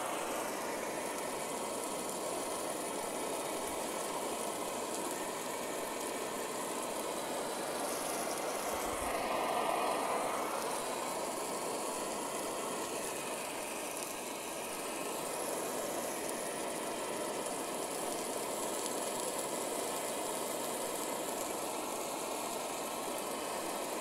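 Optimus Polaris stove burner running steadily on propane, with a steak sizzling in the frying pan on top. The sound swells briefly about ten seconds in.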